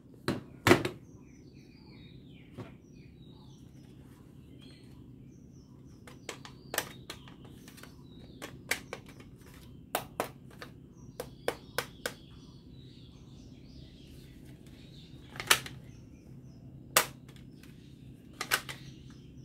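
Plastic toy guns being handled: irregular sharp clicks and clacks as the toys are picked up, knocked together and their parts snapped, the loudest near the start and twice in the last few seconds, over a faint steady low hum.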